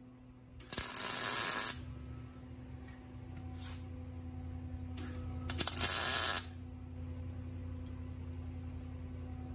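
Wire-feed welder laying two short tack welds on steel, each a loud crackling hiss of about a second, the first about a second in and the second about six seconds in, with a steady hum underneath.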